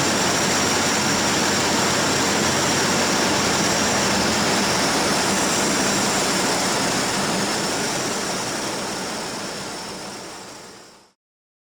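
Cabin noise of a small propeller airplane in flight: a steady drone of engine and propeller with rushing air. It fades away over the last few seconds and goes silent just before the end.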